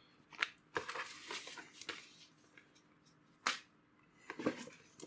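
Paper leaflets and cardboard packaging being handled: scattered rustles and sharp snaps, the loudest one about three and a half seconds in.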